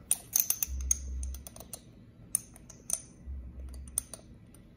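Small glass spice jar clinking and tapping against a metal measuring spoon as ground nutmeg is shaken out: a quick run of light clicks in the first couple of seconds, then a few more clicks near the middle and near the end.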